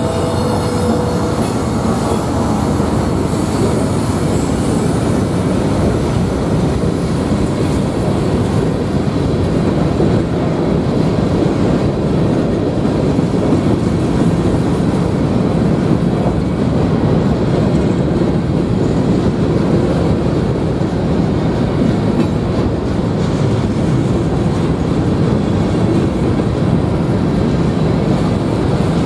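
Freight train of loaded covered hopper cars rolling steadily past on the nearest track: a continuous noise of steel wheels running over the rails and joints.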